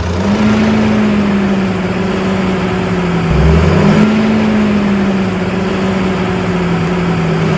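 Small electric motor running with a steady hum over a whirring, rattling noise, its pitch sagging briefly about three seconds in as if under load, then picking up again.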